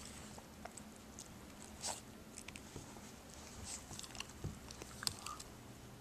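A puppy chewing and crunching her food, a run of small irregular crunches and clicks, with louder crunches about two seconds in and about five seconds in.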